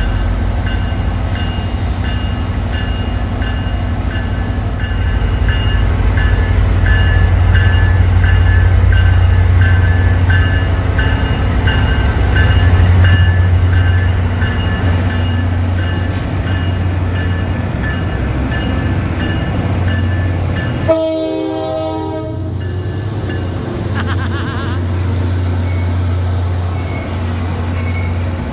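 EMD GP40MC diesel locomotive running as it departs, its engine giving a steady low hum, with the bell ringing at about one and a half strikes a second. About three-quarters of the way through the horn sounds a short chord lasting roughly a second and a half.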